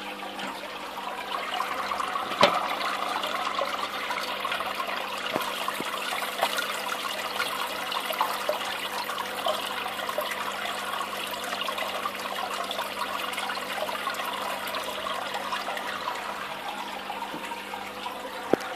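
Steady trickling and splashing of aquarium water over a low electrical hum from the tank's pump. There is a sharp knock about two and a half seconds in and another near the end.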